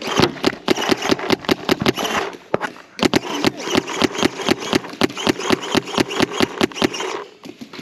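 Planet Eclipse ETHA 3 paintball marker firing in rapid strings of about seven shots a second. The firing breaks off for under a second about two seconds in, resumes and stops near the end.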